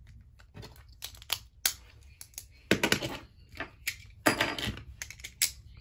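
Irregular clicks and clatter of hard plastic Beyblade parts being handled, with louder knocks about halfway through and again near the end.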